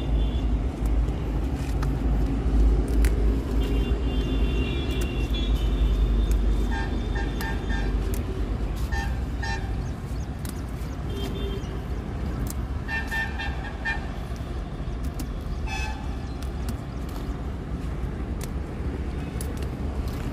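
Road traffic running under a low rumble, with vehicle horns honking in short, quick beeps: a run of about four beeps near the middle and several more a few seconds later.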